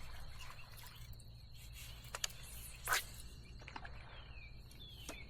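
Faint bird chirps, short downward-sliding calls in the second half, over a quiet steady hum and a thin steady high tone, with several sharp clicks, the loudest about three seconds in.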